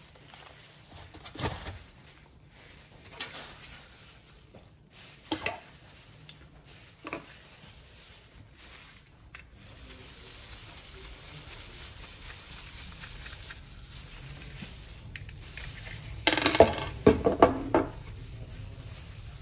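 Metal tools and pistol-magazine parts handled and set down on a wooden tabletop: scattered clicks and knocks, then a quick run of louder metallic clatters about 16 seconds in.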